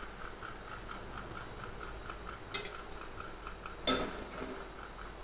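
Steel kitchen vessels clinking twice, about two and a half seconds in and again near four seconds, over a faint, fast, steady ticking.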